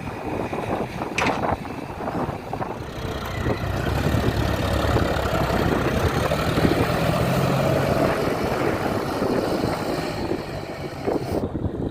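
Heavy diesel engine of earth-moving machinery running, growing louder about three seconds in and easing off near the end, with clattering knocks in the first seconds.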